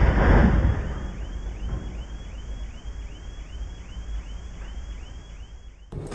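A large tree crashing down onto parked cars: a loud crash with a rush of branches in the first second. A car alarm then sounds, a rapid rising whoop repeated about three times a second, set off by the impact, until it cuts off near the end.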